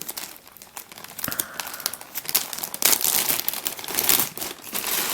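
Packaging crinkling and rustling as it is opened and handled by hand, in uneven crackly strokes.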